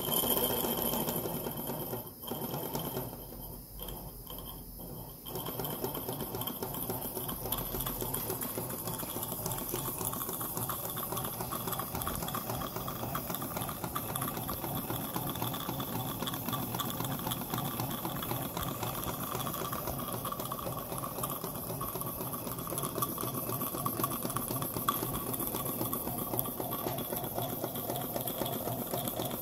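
Miniature live-steam beam engine of a Sakrausky toy locomotive running free with its wheels lifted off the track: rapid, even mechanical chatter of exhaust beats and linkage. It falters in the first few seconds after its flywheel is flicked by hand, then runs steadily from about five seconds in.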